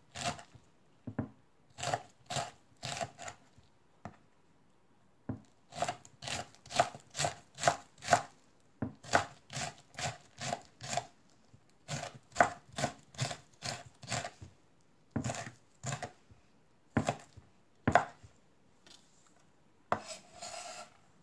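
Chef's knife chopping red chili peppers on a wooden cutting board: sharp knocks of the blade on the board in runs of about two to three strokes a second, with short pauses between runs.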